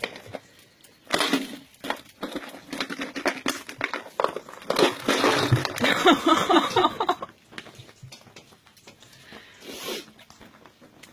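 Puppies play-fighting: scuffling and clicking of paws and bodies on the mat, with short wavering growl-like sounds in the middle. It dies down over the last few seconds.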